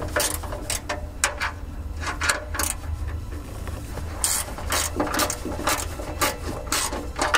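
Small hand ratchet clicking in short back-and-forth strokes as a bolt is worked loose, in quick runs of clicks with brief pauses.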